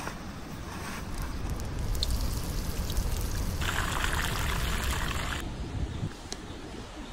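Hot oil sizzling as breaded pieces deep-fry in a wide pan over campfire coals. It is loudest and brightest for about two seconds in the middle, then drops off suddenly.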